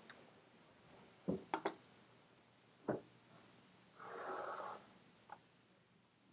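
Quiet room with a few faint, sharp clicks and knocks between one and three seconds in, then a short breathy hiss about four seconds in.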